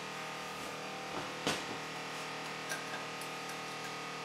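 Steady hum of the induction forge setup's water chiller, with a few light metallic clinks of tongs and the red-hot tappet blank as it is set into the forging die. The loudest clink comes about a second and a half in.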